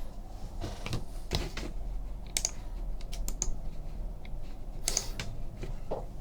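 Irregular light clicks and taps of small objects being handled on a desk, about a dozen spread out with no steady rhythm, over a low steady hum.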